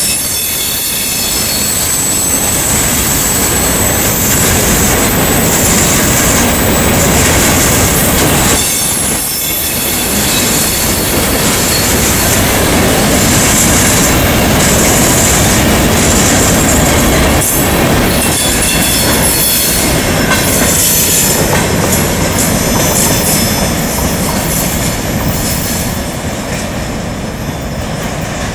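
CSX freight train of open-top hopper cars rolling past close by: steady wheel-on-rail noise with a high squeal from the wheels. It fades near the end as the last cars pull away.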